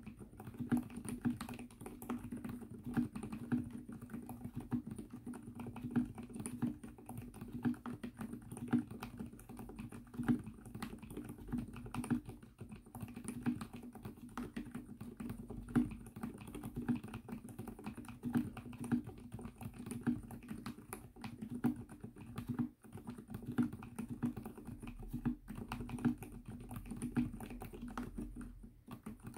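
Continuous typing on an Mstone Groove T mechanical keyboard fitted with fully lubricated silent Coral 45 g tactile switches, a low-noise non-clicky switch. It makes a steady stream of low, soft keystrokes.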